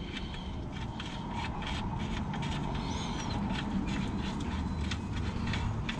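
Small irregular clicks and light scraping as the oil pan drain bolt is put back in and worked in by hand or socket, over a faint steady low hum.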